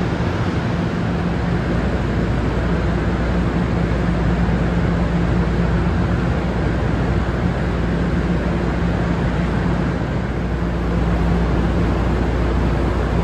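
Steady low rumble with a faint hum, the running-equipment noise beside a parked passenger rail car at a covered station platform.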